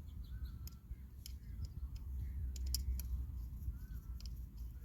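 Scattered sharp clicks and taps of hand tools and small parts being handled during e-bike repair work, a few of them close together about halfway through, over a steady low rumble.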